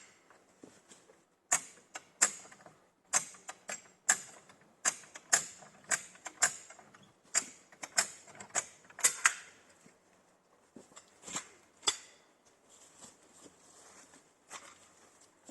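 Hand-pumped lift jack ratcheting: sharp clacks in an uneven rhythm, often in pairs, about one or two a second. They thin out about ten seconds in, and a few more come near the end.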